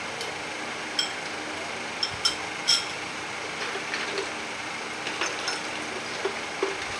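Metal spoons clinking against small bowls while sardines are eaten: several sharp, short clinks in the first three seconds, then fainter taps, over a steady background hiss.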